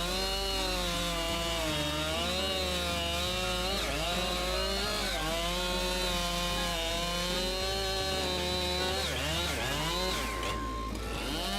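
Husqvarna 592 XP two-stroke chainsaw running at high revs while cutting through a large log. Its engine pitch sags and recovers under load, with deeper dips about four seconds in and again near the end.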